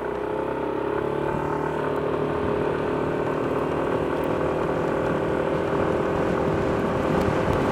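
A motor vehicle engine running steadily near idle, rising slightly in pitch about a second in, over outdoor wind and road noise. It is picked up by a wireless clip-on mic with its wind muff fitted.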